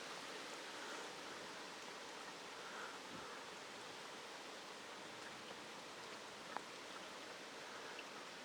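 Faint, steady outdoor wash of water noise, like rain and runoff just after a hailstorm, with a couple of faint ticks late on.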